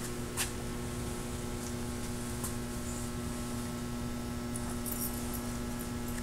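Steady electrical mains hum, a constant low drone of a few fixed pitches under faint hiss, with a few faint clicks.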